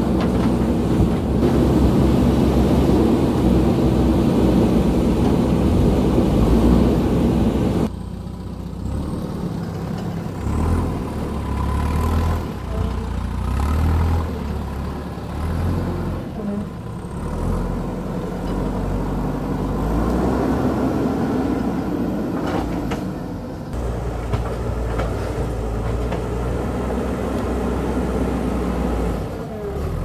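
Diesel engine of a JCB backhoe loader working under load as it digs and pushes earth, its pitch rising and falling with the throttle. Loud and close at first, it drops suddenly to a quieter, more distant engine about eight seconds in.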